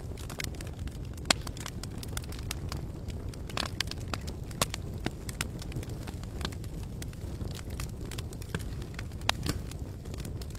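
Wood campfire crackling, with frequent irregular sharp pops and snaps over a steady low rumble. One louder pop comes about a second in.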